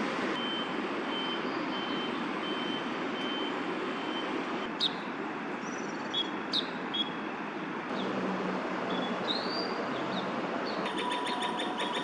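Steady hum of city traffic, with an electronic beeper sounding about twice a second for the first four seconds. A few short, sharp bird calls break through around the middle and again near the end.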